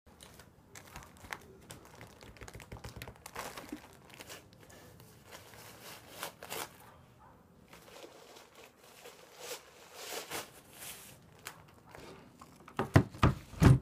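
Clear plastic wrap around a boxed watercolor set crinkling and rustling as it is handled and opened. A few loud knocks come near the end.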